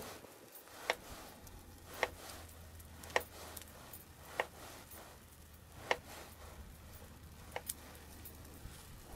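Wood fire crackling: sharp single pops roughly once a second at uneven spacing, over a faint low hum.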